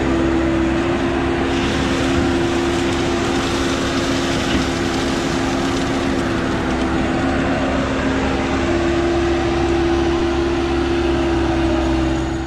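Salt-spreading dump truck running: a steady two-note drone over a constant rush of noise.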